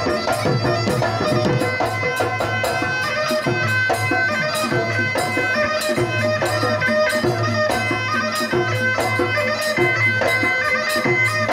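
Assamese Bihu folk music: a reedy wind instrument holds and changes notes over a regular drum beat, with sharp cymbal-like clicks in rhythm.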